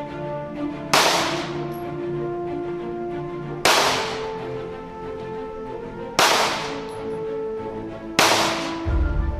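Background music of sustained chords punctuated by four sharp, crashing hits about two and a half seconds apart, each ringing out; the chord changes with each hit, and a deep bass comes in near the end.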